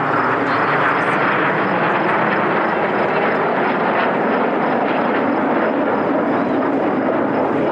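Jet roar from the Red Arrows' BAE Hawk T1 jets, each with a single Rolls-Royce Adour turbofan, loud and steady throughout.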